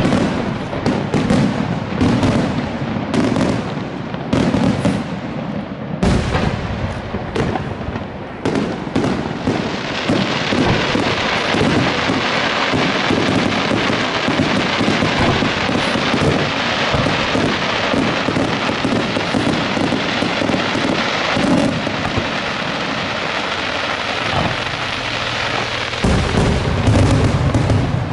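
Fireworks display: loud separate bangs at uneven intervals, then from about nine seconds in a dense, unbroken barrage of rapid bangs, with heavy booms again near the end.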